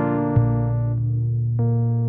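Background music: soft electric piano or synthesizer chords with a sustained bass note, new chords sounding about every half second to a second.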